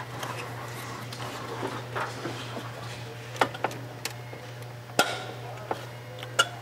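Hand-pushed clutch release lever on a 2003 Hyundai Tiburon GT transaxle, with a few sharp metallic clicks and knocks as the pull-type release bearing is forced to lock into the pressure plate. The loudest click comes about five seconds in. A steady low hum runs underneath.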